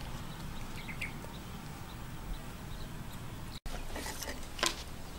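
A metal spoon scraping and clinking against a clay cooking pot as food is ladled out, with one sharp click near the end, over a steady low rumble of outdoor background noise.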